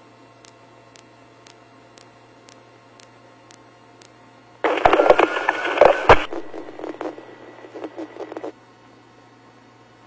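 Police radio transmission keying in about four and a half seconds in: a loud, harsh burst of garbled radio audio that lasts about four seconds, fades, and cuts off abruptly. Under it runs a steady low hum with faint ticks about twice a second.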